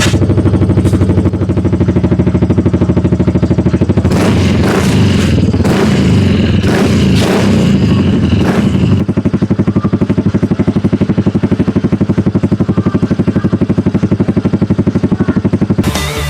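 Single-cylinder engine of a Yamaha Mio M3 scooter running through a HUN 2-in-1 aftermarket exhaust, idling with a steady pulse. It is revved in a series of quick throttle blips between about 4 and 9 seconds in, then settles back to idle.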